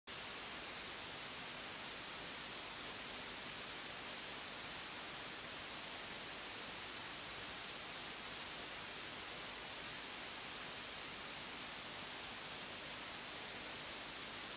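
Steady, even hiss with a faint low hum underneath and no distinct events: background noise of the recording before the talk begins.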